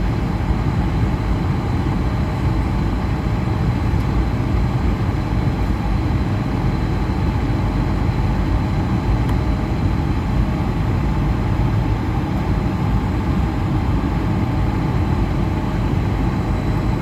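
Airbus A220-100's Pratt & Whitney PW1500G geared turbofans heard during departure as a steady low rumble, with a faint thin high whine.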